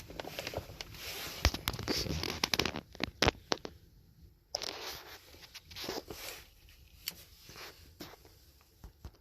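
Handling noise as a diagnostic scan tool is swapped in and set up: rustling, scraping and scattered sharp clicks. The noise is busiest in the first four seconds, with a brief lull, then sparser bursts and clicks.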